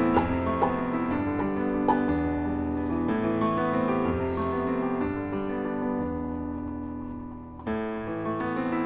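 Background music led by piano, held chords shifting every second or so, dipping briefly about seven and a half seconds in before a new chord comes in.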